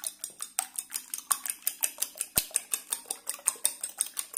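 Fork beating four raw eggs in a ceramic bowl: a fast, even run of clicks as the tines strike the bowl, about seven a second, stopping abruptly near the end.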